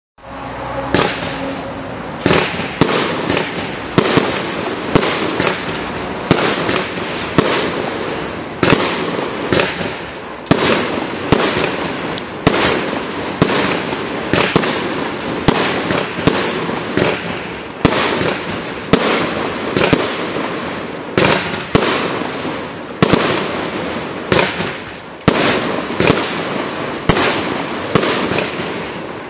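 A Magictime P7619 Thorn 49-shot fireworks battery (25 mm calibre) firing: sharp launch shots, about one to one and a half a second, over a continuous rushing, crackling noise from the burning effects. It starts abruptly out of silence.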